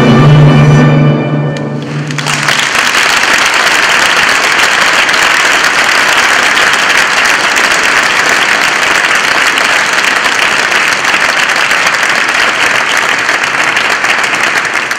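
Choir and orchestra holding the piece's final chord, which breaks off between one and two and a half seconds in, then steady audience applause.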